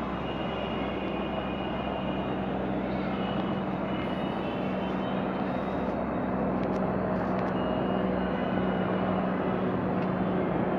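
Helicopter flying overhead, a steady engine and rotor drone with a low hum that grows a little louder partway through.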